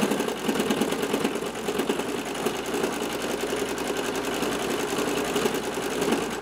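Home sewing machine running fast and steadily, its needle stitching free-motion embroidery fill through a baseball cap; the stitching stops suddenly at the very end.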